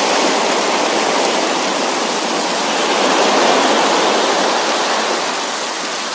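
Sea waves washing on the shore together with steady rain: a continuous wash of water that swells around the middle and eases off toward the end.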